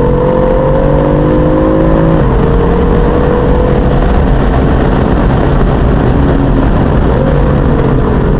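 BMW M4's twin-turbo straight-six heard from inside the cabin, its note climbing under acceleration until an upshift about two seconds in drops the pitch. The pitch then holds fairly steady before a short jump and fall near the end, over steady road and wind noise.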